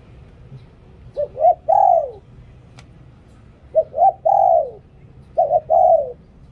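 Spotted dove cooing: three phrases, each two short notes followed by a longer note that falls in pitch at the end, about a second and a half apart.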